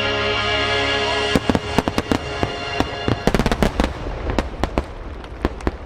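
Held chord of the show's music, cut off about a second and a half in, then a dense crackle of fireworks: many sharp pops in quick succession that thin out toward the end.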